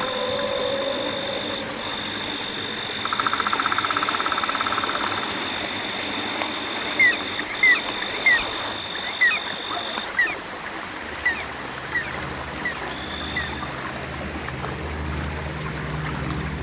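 Night chorus over trickling water: a steady high insect drone, a rapid trill about three seconds in, then a run of short chirps from about seven seconds on.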